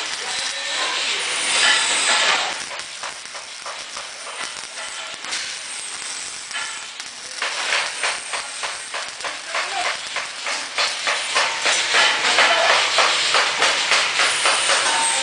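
Electric arc welding crackling and hissing, getting louder about seven seconds in.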